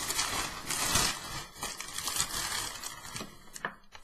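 Packing paper and packaging crinkling and tearing as a package is unwrapped by hand, busy at first and dying down near the end.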